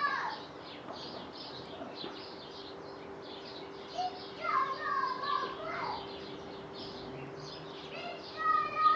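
Backyard birds chirping, with quick high chirps throughout and a few longer whistled calls about halfway through and near the end, over a faint steady hum.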